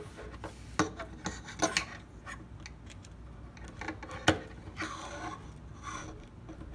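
Small hard-plastic parts of a Transformers action figure clicking and rubbing against each other as a toy gun is pushed into the figure's hand. There are scattered light clicks, one sharper click a little past four seconds, and a short scrape of plastic on plastic about a second later.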